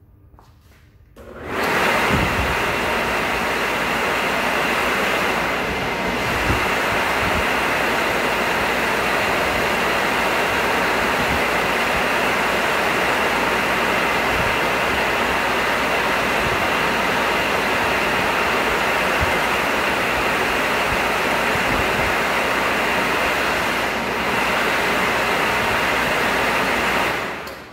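Electric motor spinning a lightweight straight radial-blade centrifugal cooling fan for a VW Type 1 engine, running in free air without its shroud: a loud, steady rush of air with a faint whine in it. It starts about a second in and stops shortly before the end.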